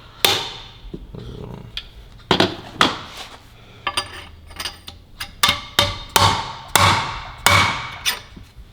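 About ten sharp metallic knocks at irregular intervals, each ringing briefly, from work on a rear differential's metal parts.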